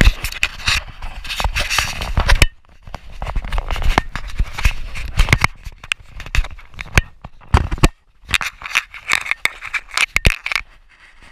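Close scraping and rubbing with many sharp clicks and rattles, the handling noise of a GoPro camera in its housing being rubbed and knocked, broken by short quieter gaps.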